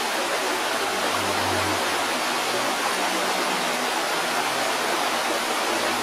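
Steady, loud rushing of whitewater: an even, unbroken hiss spread from low to very high pitches.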